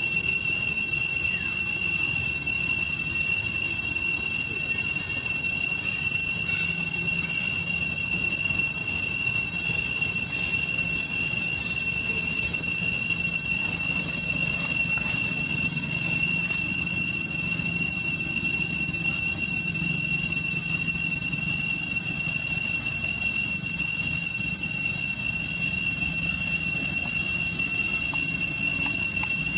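Insects droning steadily: an unbroken, even, high-pitched whine made of a few held tones.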